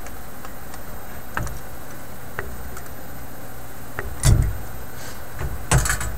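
A few light clicks, then two louder knocks in the second half, from tools and parts being handled at a tube radio chassis during capacitor replacement, over a steady low hum.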